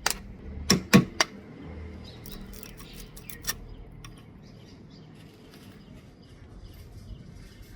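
Three quick hammer blows about a second in, then faint small clicks and scraping of hand work.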